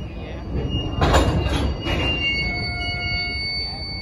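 Steel wheels of a slow-moving freight train's tank car squealing against the rail, several thin high tones held over a low rumble, with a louder noisy rush about a second in.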